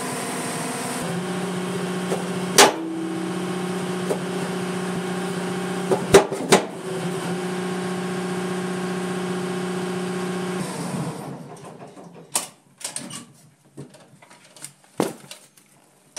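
Engine of a hydraulic machine idling steadily on a test run to check freshly tightened hydraulic fittings for leaks, with a few sharp knocks, then shutting off about eleven seconds in, followed by scattered clicks and knocks.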